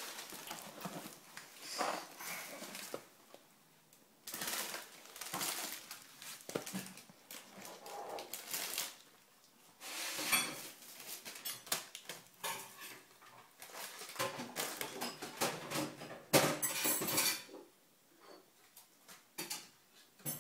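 A paper shopping bag and packaged groceries rustling, crinkling and knocking as a toddler rummages in the bag and pulls items out onto a tiled floor. The sound comes in uneven clusters with a couple of quieter pauses.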